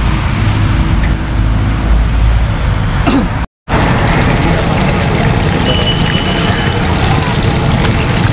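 Low rumble of road traffic, then, after a sudden break, chicken pieces deep-frying in a large wok of hot oil: a steady, dense sizzle.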